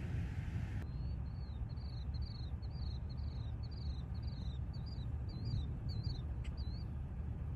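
Wind buffeting the microphone as a steady low rumble. About a second in, a bird starts singing a run of quick, high, down-slurred notes, about two a second, that stops near the end.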